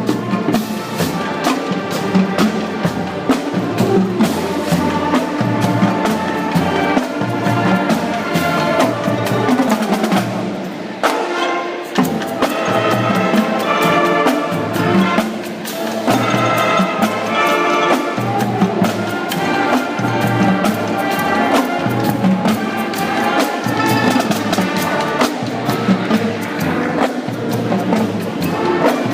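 Band music with brass and drums playing a steady beat.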